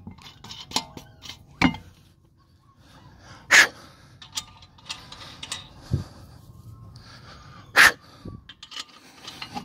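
Lug nuts being threaded by hand onto the wheel studs of a spare tire: scattered light metal clicks and scrapes, with two short, loud rushes of noise about four seconds apart.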